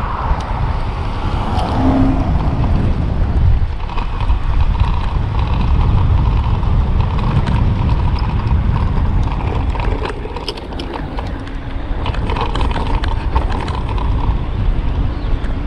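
Wind rushing over the microphone, with tyre rumble from an electric tandem bicycle riding at about 20 mph, partly over brick pavement. Light rattles come and go, most of them in the second half.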